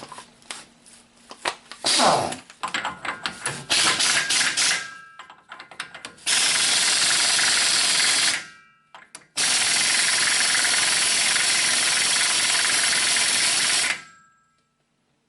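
Metal clinks and knocks of a socket and tools being fitted, then a pneumatic impact wrench running the front axle nut on in two steady bursts, about two seconds and then about four and a half seconds long, tightening it up before final torquing.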